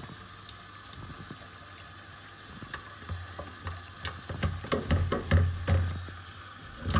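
Kitchen tap running into a frying pan in the sink while a dish brush scrubs it. From about three seconds in, a run of knocks and clatter as the pan and brush are worked against the sink.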